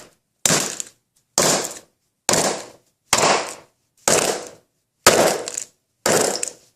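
A mallet repeatedly smashing an old smartphone, seven hard blows about a second apart, each trailing off briefly.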